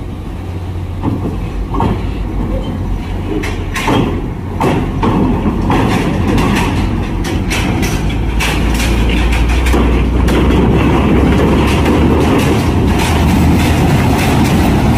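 A large vehicle's engine running close by, growing louder about halfway through, with repeated sharp metallic clanks and knocks typical of wheels crossing a ferry's steel loading ramp.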